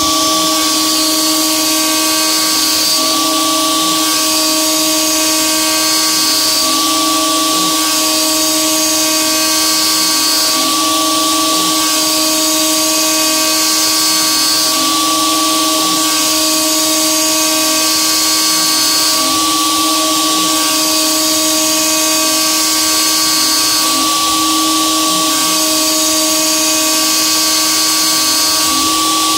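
DeWalt DWP-611 router spindle on an XCarve CNC, set to speed 2, dry-cutting roughing passes in 6061 aluminum with a 1/8-inch two-flute carbide end mill. It makes a steady whine with a high hissing cutting noise that swells about every three to four seconds.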